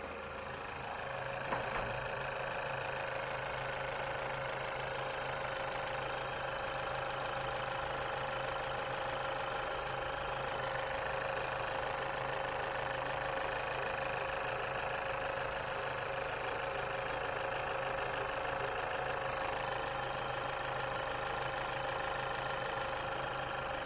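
A Chevrolet Malibu's 1.5-litre turbocharged four-cylinder engine idling steadily on its first run after a vacuum pump replacement. There is a single light click about a second and a half in.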